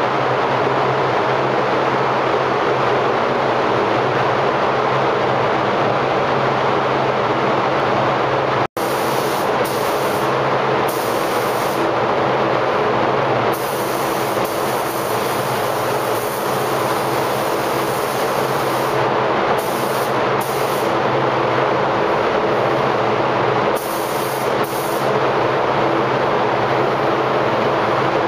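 Steady rushing hum of the spray booth's air handling. From about nine seconds in, a paint spray gun's high hiss starts and stops in bursts as it is triggered on and off.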